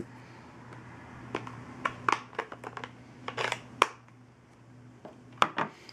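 Scattered light clicks, taps and rustles of wood-mounted rubber stamps and other craft supplies being picked up and set down on a table, with one sharper knock near the middle. A faint steady hum sits underneath.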